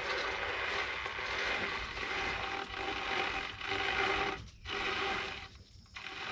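Yamaha Wolverine X4 CVT primary clutch being turned by hand, the drive belt rubbing and scraping in the sheaves as it is worked down to engage. The noise drops away briefly twice near the end.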